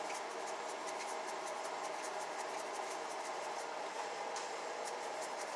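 Frying grease heating in a skillet: a steady sizzling hiss with many faint, quick crackles.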